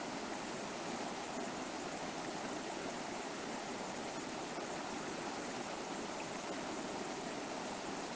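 Steady rushing of a jungle river's water flowing over rocks, an even noise without breaks.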